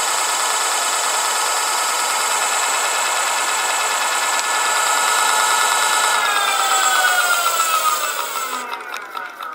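Electric motor running at full speed with a steady whine of several stacked tones. About six seconds in it begins winding down, the pitch falling steadily and the sound fading as the rotor slows.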